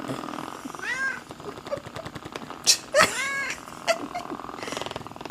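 A domestic cat meowing twice, about a second in and again about three seconds in, each call rising and then falling in pitch. A sharp knock, the loudest sound, comes just before the second meow.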